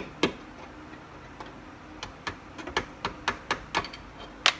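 Hammer tapping on a punch to drive out a small pin on an Isuzu Trooper's door: sharp metal taps, two near the start, then a quicker run of about three to four taps a second from about two seconds in.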